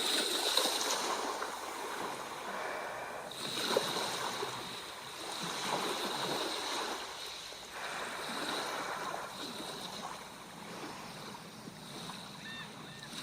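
Sea waves breaking and washing onto the shore, swelling and falling away every two to three seconds.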